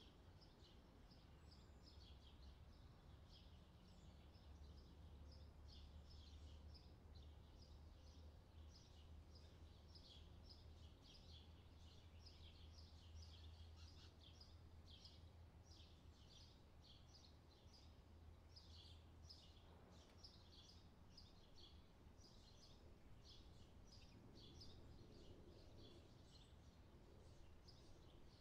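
Faint, continuous chirping of small birds: many short high notes, several a second, with no pause. Under it runs a low steady rumble that weakens about two-thirds of the way through.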